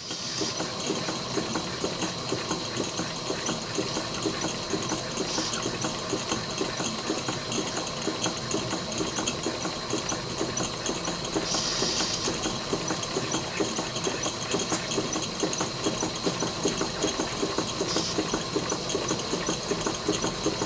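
Cotswold Heritage model steam engines running together on live steam, unloaded and on low boiler pressure: a fast, even chuffing and clatter of pistons and valve gear over a steady hiss of steam. The hiss swells briefly four times.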